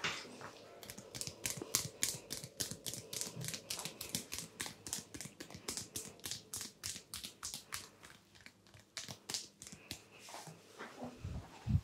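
Fingers rubbing and scratching through hair on a person's scalp during a head massage, picked up close to the microphone as a quick, even run of crisp strokes, about four a second. A dull thump near the end.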